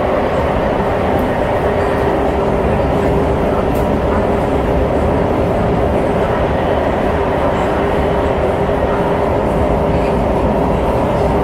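Interior noise of an SMRT C151 metro train running at steady speed: a constant rumble of wheels on track with a steady tone running through it.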